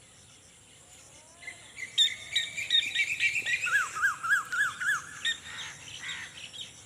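Birds calling: a run of chirps lasting about three seconds, including five quick repeated notes, each rising and falling.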